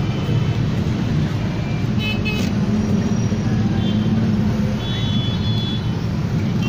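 Dense road traffic of cars, motorcycles and rickshaws, with engines running steadily, and short horn toots about two seconds in and again around five seconds in.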